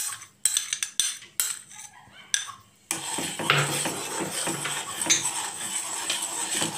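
A spoon clinking and scraping against a pan while stirring milk and custard powder as it thickens. Separate knocks come for the first three seconds, then a steadier scraping.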